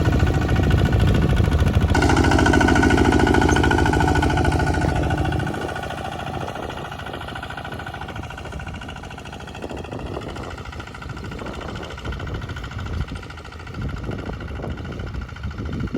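Bulldozer engine running, loud and steady for about the first five seconds, then dropping to a quieter, lower rumble with uneven knocking sounds.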